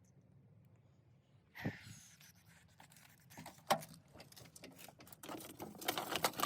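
Hands handling a car's interior plastic parts: a short noisy knock about a second and a half in, a few sharp clicks, then a run of light clicking and rattling near the end.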